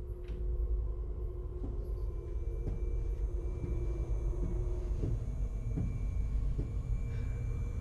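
A low, steady rumble with faint held tones above it: an ominous horror-film ambience drone, with a few soft knocks that fit footsteps.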